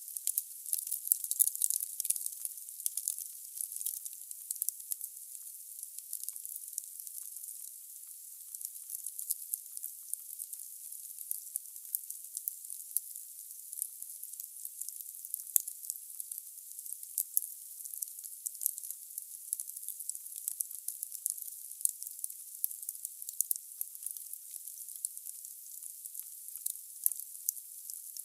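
Wood fire burning in a fireplace: logs crackling with many irregular sharp pops over a steady hiss. The sound is thin and high, with no low rumble.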